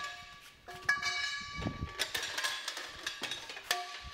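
Generic steel wheel clamp being forced off a caravan wheel with a steel bar: several sharp metallic knocks, each leaving a short ringing tone, as the clamp breaks apart and its pieces fall onto concrete.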